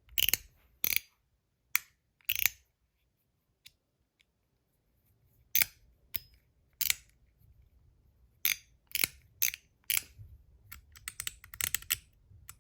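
Stainless steel MOT Groove mechanical slider fidget being slid back and forth, each throw ending in a sharp metallic click. Single clicks come about a second apart, stop for about three seconds, then start again and speed up into a rapid run of clicks near the end.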